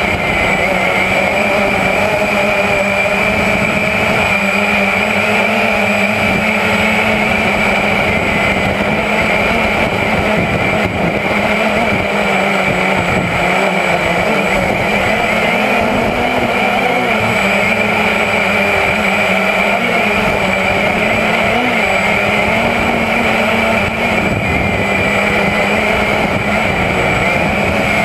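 Walkera QX350 quadcopter's four motors and propellers whining steadily, heard close up through the drone's own onboard camera. The pitch wavers slightly as it manoeuvres.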